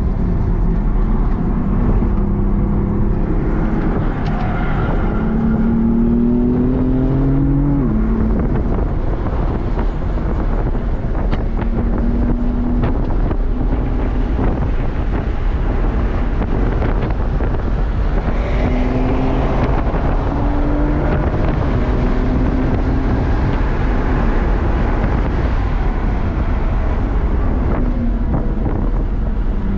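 In-cabin sound of a BMW M4 Competition's twin-turbo inline-six driven hard on a race track. The engine note climbs under acceleration and drops back at gear changes and braking, over constant wind and tyre noise.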